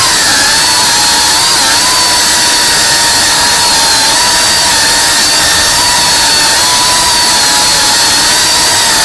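FPV quadcopter's motors and propellers running steadily, a high whine over a loud rush of propeller noise, the pitch wavering slightly a few times.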